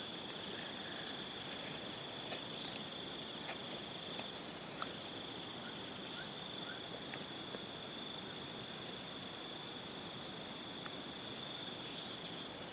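Chorus of insects such as crickets trilling in steady, high-pitched continuous tones, with a few faint clicks.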